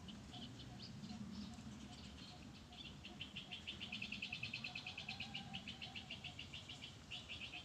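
A bird calling: a few scattered high chirps, then from about three seconds in a fast, even run of chirps, roughly eight a second, with a brief break near the end.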